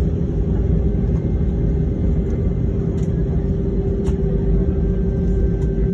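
Airbus A320ceo cabin noise while taxiing, heard from a window seat: a steady low rumble with a constant hum from the engines running at taxi power.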